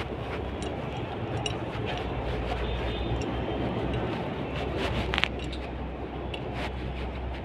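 Steady low rumble and hum of running machinery, with scattered light metal clicks and one sharper click about five seconds in.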